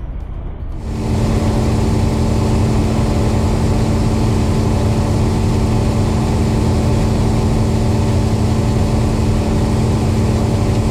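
Farm machinery engine running steadily under load, with a constant hum and strong low rumble; it starts abruptly about a second in.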